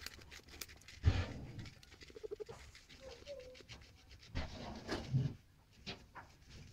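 Guinea pigs crunching and chewing carrot: many quick crisp clicks, with a couple of brief soft squeaking calls between about two and three and a half seconds. Louder rustling thumps come about a second in and again around five seconds in.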